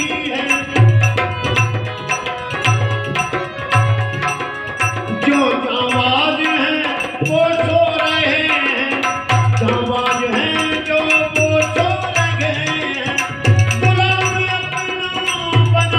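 A man singing a slow Hindi song with harmonium accompaniment, while a hand drum plays low strokes in a repeating rhythmic pattern.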